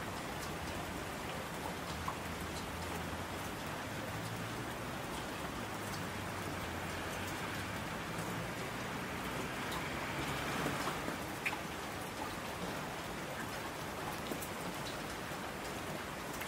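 Steady rain falling, with scattered drop ticks, swelling briefly about ten seconds in.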